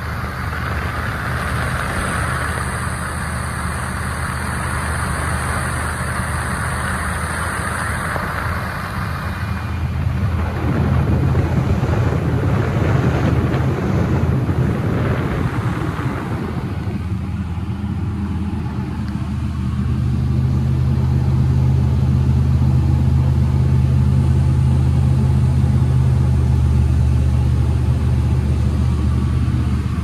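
Single-engine propeller plane's engine and propeller droning steadily, heard inside the cabin. A rushing hiss sits over it for the first several seconds, and the drone grows louder about two-thirds of the way through.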